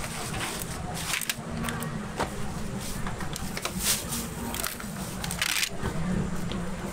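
Short clatters and scrapes of cooking utensils at a dorayaki griddle stall, the longest scrape about five and a half seconds in, over a low steady hum and faint background voices.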